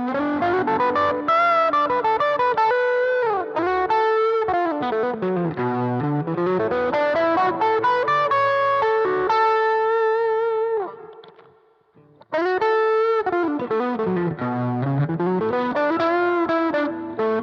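Electric guitar played with overdrive through a Roland Blues Cube Hot amplifier, with two drive pedals stacked: an Ignitor on its overdrive section and a Barber Small Fry, a darker, Dumble-style pedal. Melodic lines run down to low notes and back up, with a brief stop about eleven seconds in.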